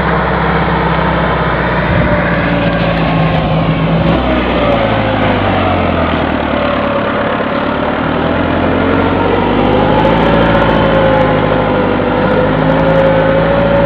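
Massey Ferguson 385 tractor's four-cylinder diesel engine straining under a very heavy load as it pulls a trolley full of sugarcane. The pitch shifts about four seconds in and wavers up and down through the second half as the revs change.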